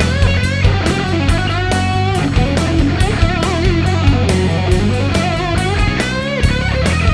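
Rock music with an electric guitar solo, its lead notes bent and shaken with vibrato, over bass and steady drum hits.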